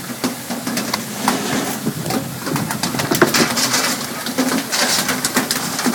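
Water splashing and spraying at a fishing boat's side as tuna are hauled out of the sea, with many irregular sharp splashes and knocks and hissing bursts of spray about three and a half and five seconds in, over a steady low engine hum.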